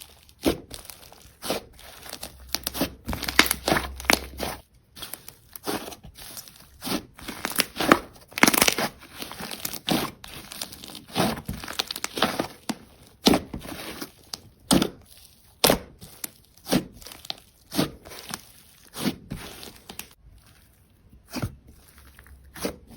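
Slime being worked by hand, giving off irregular sharp pops and crackles, about one or two a second with some quick runs.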